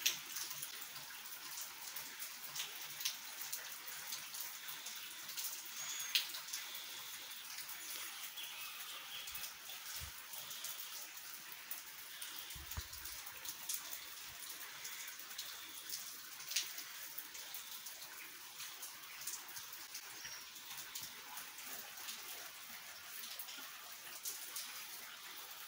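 Steady rain falling, an even hiss with many small drop ticks on wet surfaces.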